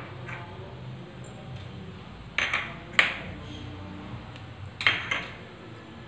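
Stainless steel bowls clinking as a small steel bowl of curd is handled against a large steel mixing bowl: two sharp ringing clinks about two and a half to three seconds in and two more about five seconds in.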